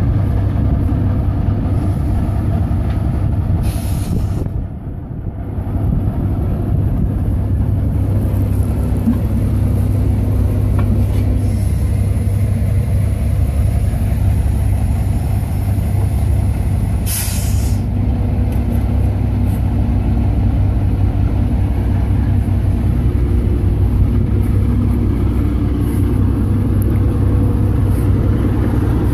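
1965 Autocar tow truck's six-cylinder turbo diesel engine idling steadily. Two short hisses of air come from the air system, about four seconds in and again about seventeen seconds in.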